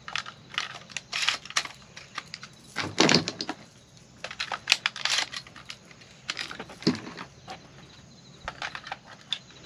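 12-gauge shotgun shells being pushed one by one into the magazine tube of a Kel-Tec KSG bullpup shotgun: an irregular string of sharp plastic-and-metal clicks and clacks.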